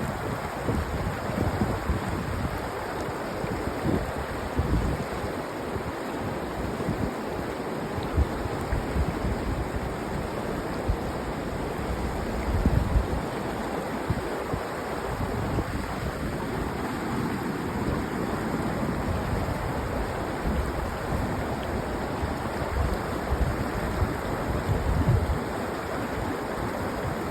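Mountain river water rushing steadily, with wind buffeting the microphone in low gusts now and then.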